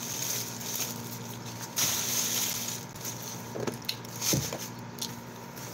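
A crisp papad being handled, with a brief loud crackling rustle about two seconds in and a few soft clicks later, over a steady low room hum.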